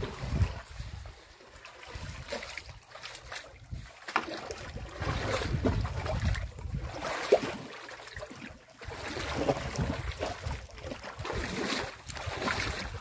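Wind buffeting the microphone, with small waves lapping and splashing in shallow sea water; the level swells and drops unevenly.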